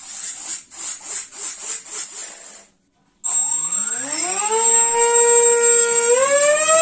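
Rasping pulses about three a second, then after a brief gap a 2212 2450KV brushless motor spinning up with its propeller: a loud whine that rises in pitch, holds steady, then rises again near the end as the throttle is opened further, with a thin high whistle over it.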